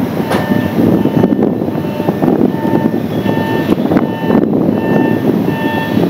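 JR 683 series 8000-number electric express standing at the platform, its onboard equipment running with a steady hum. Short high tones sound on and off over it.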